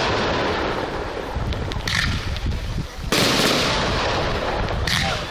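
Large fireworks display: an aerial shell bursts with a sudden loud bang about three seconds in, with shorter sharp cracks before and after and continuous rumbling from other bursts.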